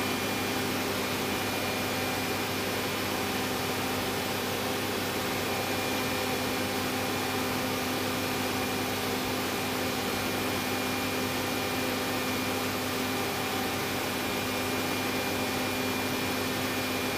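Steady drone of running machinery: a constant low hum and a thin high whine over a loud even hiss, unchanging throughout.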